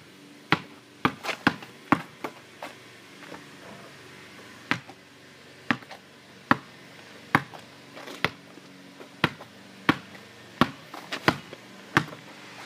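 Basketball dribbled in sharp, uneven bounces, about one to two a second, with quick runs of two or three bounces as the ball is crossed over from hand to hand. There is a gap of about two seconds after the first few bounces.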